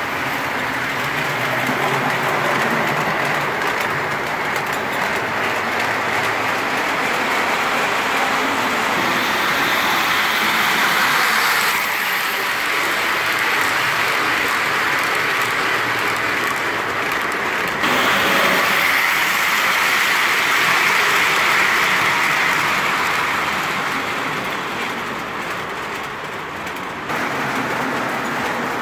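O-gauge model trains running on three-rail track: a steady rolling rumble of wheels and motors as a passenger train passes close by. The loudness shifts abruptly about 12, 18 and 27 seconds in.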